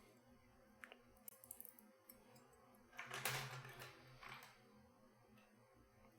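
Faint small clicks and taps of metal tools on the parts of an Assa Twin Exclusive lock core as its finger pins are picked out, with a brief rustle about three seconds in.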